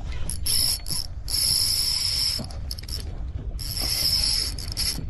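Spinning fishing reel being cranked by hand, its gears whirring in spurts with short pauses as line is wound in on a hooked fish.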